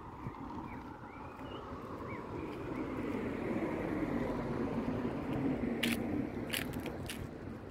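A car passing by, its sound swelling to a peak past the middle and then fading. Faint bird chirps in the first couple of seconds and a few sharp clicks near the end.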